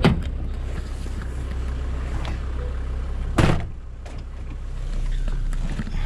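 Car running with a steady low engine and road hum, broken by two sharp knocks, one right at the start and a louder one about three and a half seconds in.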